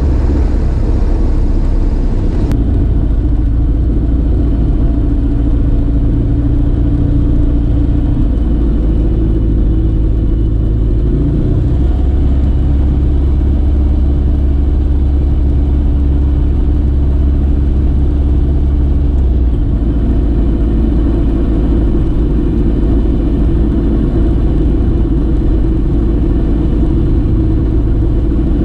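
Rotax 912 flat-four engine and propeller of an Evektor EV97 Eurostar running at low power, heard from inside the cockpit during the landing roll-out and taxi. The engine hum is steady, with the note shifting at small throttle changes about 8, 11 and 19 seconds in, and a high hiss drops away about two and a half seconds in.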